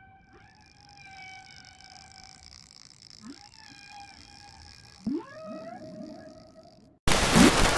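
Whale calls: long held tones that bend up and down, with a few quick upward sweeps. Near the end they cut off abruptly into a loud rushing noise.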